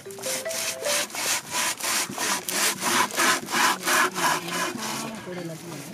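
Toothed hand saw cutting through a tied bundle of paper fuse tubes, in quick even back-and-forth strokes about three a second.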